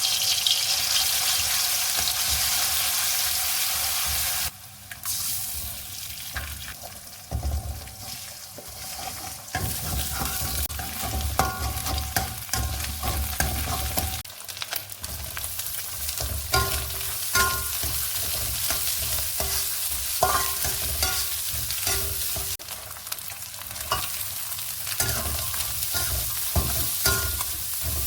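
Food sizzling in a hot pan, loudest for the first four seconds or so, then stirred with a spatula that scrapes and clinks against the pan.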